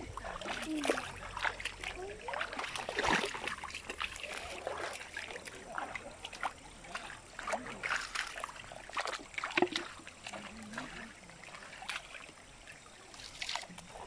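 Footsteps splashing through a shallow, stony stream, with irregular splashes and knocks of feet on wet stones over the trickle of running water.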